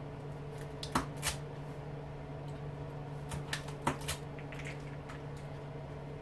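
Sharp metallic clicks and snaps of hand tools working on an electric lawnmower motor's windings: two about a second in, then a quick cluster of four a couple of seconds later. A steady low hum runs underneath.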